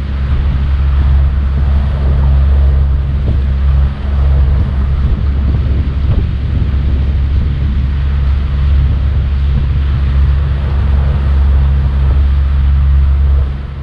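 Outboard motor of a small boat running steadily under way, a constant low drone, with wind buffeting the microphone and water rushing along the hull.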